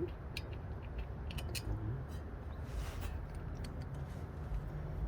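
Faint scattered clicks and taps of hand tools on metal while brake bolts are tightened, over a low steady background hum.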